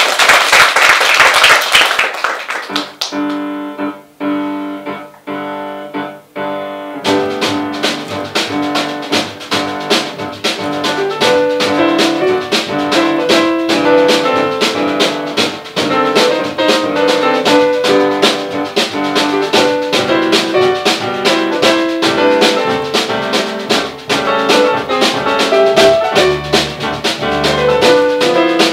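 Brief audience applause, then a jazz piano trio starts a tune: solo grand piano chords open it, and about seven seconds in the drum kit comes in with a steady beat and the band plays on.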